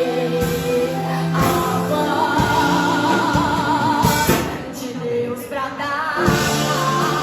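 Praise song: a singer holding long notes with vibrato over a backing band with drum hits.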